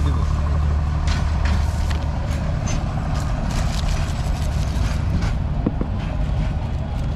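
A motor vehicle engine running steadily, a low hum, with a crackle of plastic bag being handled several times in the first few seconds.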